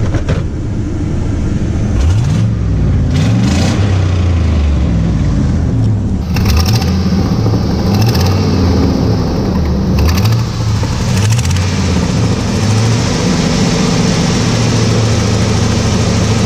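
Chevy 2500 HD's LLY Duramax V8 turbodiesel running, its pitch rising and falling again and again as it revs. The owner hears a manifold leak as the only bad note in its sound.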